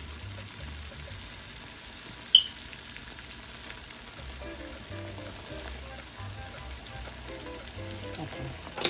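Tomato-based sofrito simmering in a cast-iron skillet, a steady sizzle. There is a short, high clink about two and a half seconds in and a sharp knock near the end.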